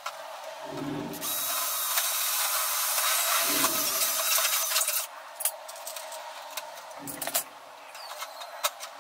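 Cordless drill running and boring through thin sheet metal for about four seconds, starting about a second in, followed by several sharp clicks and taps of metal and tools being handled.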